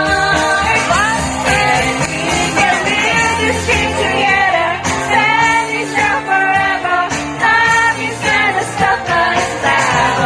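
Karaoke: a person singing into a microphone over a pop backing track.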